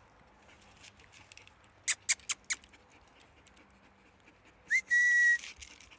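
Four sharp clicks in quick succession about two seconds in. Then, near the end, a person whistles: a short upward slide into one steady high note held for about half a second.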